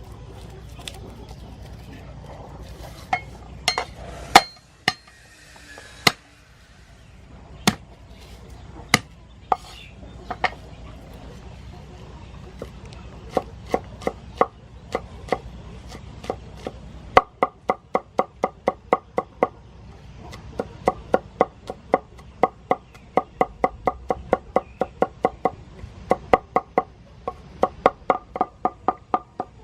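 Knife chopping garlic on a cutting board. A few scattered knocks come first, then from about halfway a fast, steady run of about four chops a second.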